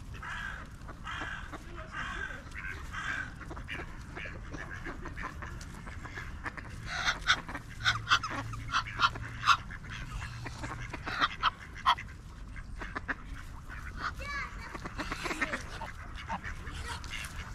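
Ducks quacking, a run of short repeated calls that grows busiest and loudest around the middle.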